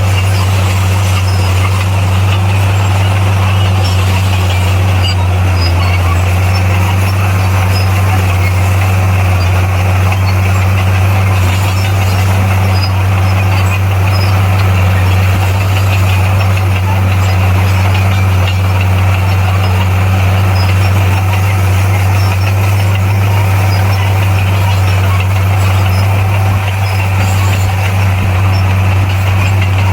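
Bulldozer's diesel engine running under load at a steady, heavy drone.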